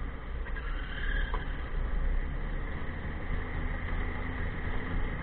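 Snowmobile running steadily along a trail, a continuous engine drone over a heavy low rumble.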